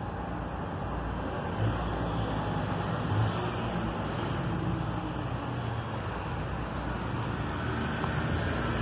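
Steady low rumble and hiss of motor vehicles, with two brief louder swells about two and three seconds in.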